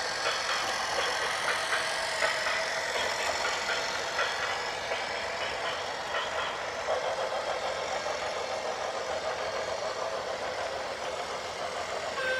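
A heavy vehicle's diesel engine running, with some mechanical clatter over it.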